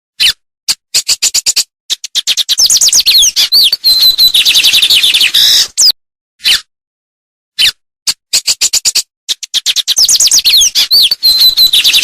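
A songbird singing: a few sharp, separate chips that speed up into a fast run of high sweeping notes with a held whistle in the middle. The same phrase comes twice, with a gap of silence between.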